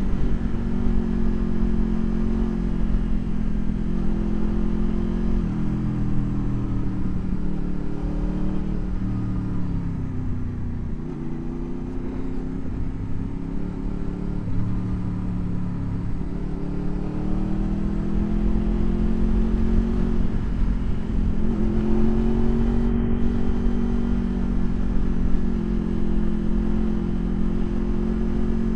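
Motorcycle engine running under way, its revs falling and rising with gear changes and throttle, over a low wind rumble on the microphone. The revs sag about a third of the way in, then climb again in steps.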